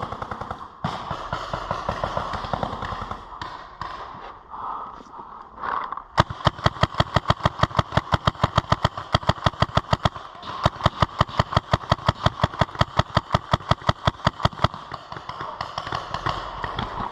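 Paintball marker firing rapidly in long strings of sharp pops, about eight shots a second, from about six seconds in, with a brief pause in the middle, stopping a couple of seconds before the end. Before that, scattered pops and knocks.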